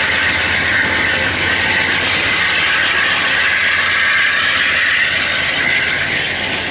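Articulated passenger train cars, an Amtrak Talgo trainset, rolling past close by. It makes a loud, steady rush of wheel and rail noise.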